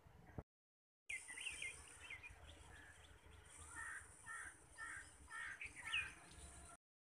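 Birds calling faintly outdoors: a few quick falling chirps, then a run of about five repeated calls at roughly two a second, over a steady high-pitched whine. The sound drops out completely for a moment about half a second in and again near the end.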